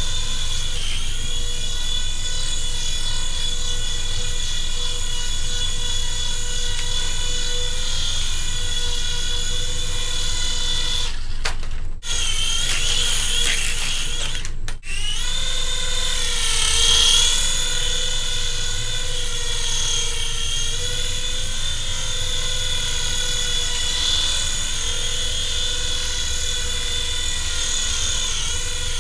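Small electric rotor motors of a Hasbro remote-control Republic Gunship toy helicopter whirring with a steady high whine. The whine breaks off briefly twice near the middle, then its pitch dips and climbs back as the motor speed changes.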